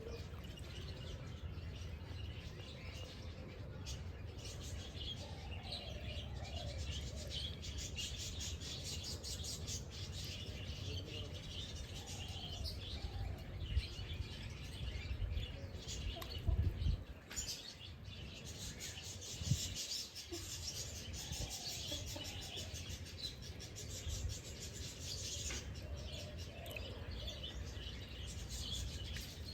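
Many small birds chirping and singing together, with a few short falling calls lower in pitch. Underneath is a steady low rumble, and a few dull thumps come around the middle.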